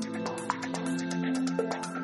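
Background music: held synth chords over a fast, even ticking beat.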